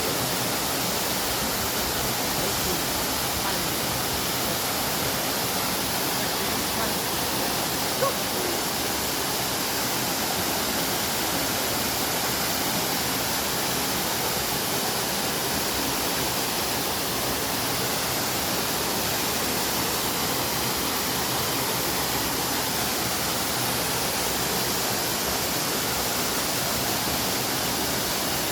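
Waterfall: the steady, even rush of falling water, with one brief click about eight seconds in.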